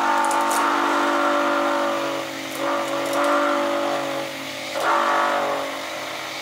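Electric stick blender running in a bucket of liquid soap batter, its motor whining steadily as it blends oil and lye solution toward trace. The whine swells louder and brighter three times: at the start until about two seconds in, again from about two and a half to four seconds, and briefly around five seconds.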